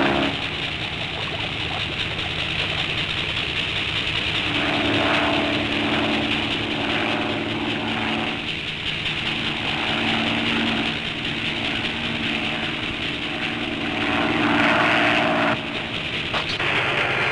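Cartoon laboratory machinery running with a steady electric hum and whir, as levers on the control panel are worked. A low droning tone joins in about four seconds in, wavering and dipping now and then.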